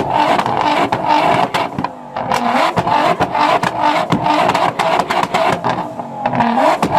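Nissan GT-R engine being revved repeatedly, its exhaust crackling with rapid, irregular pops and bangs as it spits flames.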